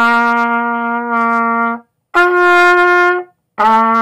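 Trumpet playing three held notes: a low note that stops just under two seconds in, a higher note after a short gap, then the low note again near the end.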